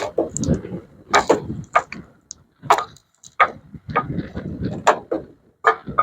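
A run of irregular knocks and clatters, about a dozen in six seconds, some sharper and louder than others.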